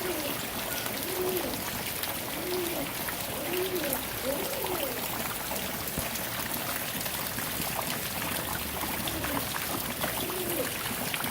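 Steady rain falling and trickling. Over it, a short low call that rises and falls in pitch repeats about once a second for the first few seconds, stops, and comes back near the end.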